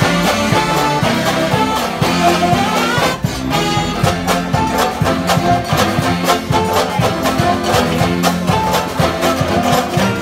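Mummers string band playing a swing-style jazz tune live, with many banjos strumming in a steady rhythm under accordion and saxophones.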